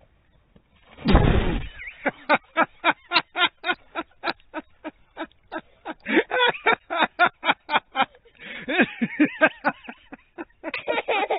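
A person plunging into a water-filled pit with one big splash about a second in, followed by hearty laughter in quick repeated pulses for several seconds and then more voice toward the end.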